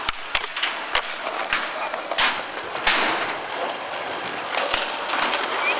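Skateboard rolling and scraping on concrete, with several sharp clacks of the board and trucks hitting the ground.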